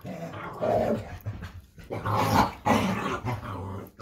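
A puppy and an older basset hound play-fighting, growling in repeated short, irregular bursts.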